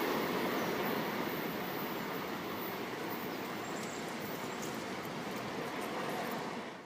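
Passenger train rolling away on the rails, a steady wheel-and-rail rumble that slowly fades, then cuts off sharply near the end.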